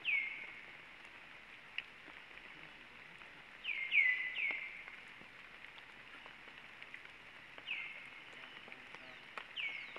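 Short, high animal chirps, each sweeping sharply down and ending on a brief steady note: one at the start, three in quick succession around four seconds in (the loudest), and more near eight and nine and a half seconds, over a steady hiss.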